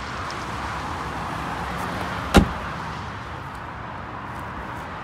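Kia e-Niro's tailgate being shut: one sharp slam about two and a half seconds in, over a steady background hiss.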